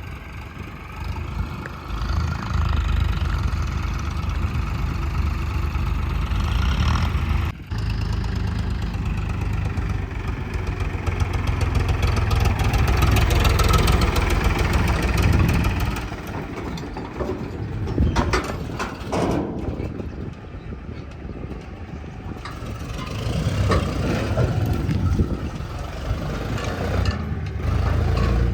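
JCB backhoe loader's diesel engine running under load, its pitch and loudness rising and falling as it revs up and eases off. There is a brief drop-out about seven and a half seconds in.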